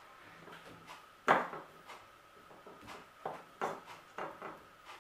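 Metal spoon knocking and scraping against a metal ring mould and its base while spreading diced cooked chicken: one sharp knock a little over a second in, then several lighter clicks in the second half.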